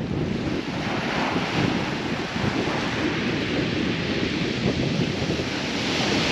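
Sea surf washing on a steep shingle beach, with wind buffeting the microphone in low rumbles.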